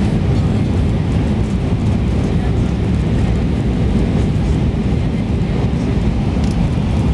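Steady cabin noise inside an Airbus A320-200 descending to land: engine and airflow rumble, heaviest in the low end, with a faint steady hum above it.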